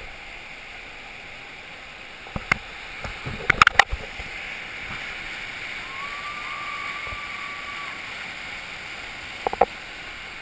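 Whitewater rushing steadily through a big river rapid, as heard from a kayak at its lip. A few sharp knocks break over it, about two and a half seconds in, a louder cluster just before four seconds, and two more near the end.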